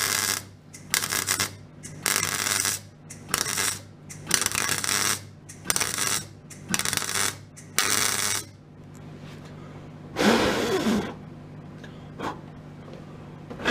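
MIG welder laying a run of short stitch welds on the car's steel sill and wheel-arch repair: about eight separate bursts of arc noise, each under a second, over a steady low hum. After a pause, a single louder noise lasting about a second comes about ten seconds in.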